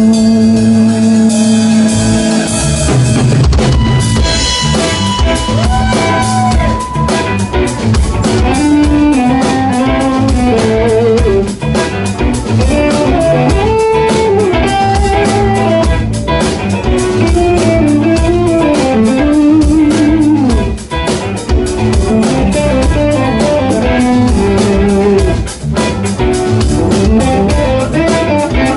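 Live rock band playing an instrumental jam: a lead electric guitar solo with bent notes over a drum kit and keyboards. A held chord at the start gives way to the running solo line.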